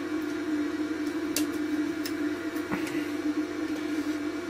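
A steady hum at one pitch, with a few faint clicks as fingers wiggle a desoldered chip on a circuit board to test whether its pins are loose.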